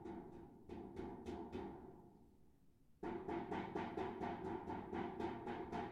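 Rapid, even tapping carried up an air duct from the basement, where a heat pump is being installed, over a steady hum. The tapping comes about four or five times a second, fades away partway through and starts again suddenly about three seconds in.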